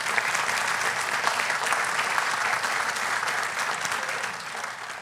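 Audience applause, a steady dense clapping that eases off slightly near the end.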